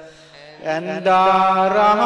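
Sinhala devotional verse sung in a slow, chant-like melody over a steady low drone. The voice pauses briefly and comes back in on a long held note about half a second in.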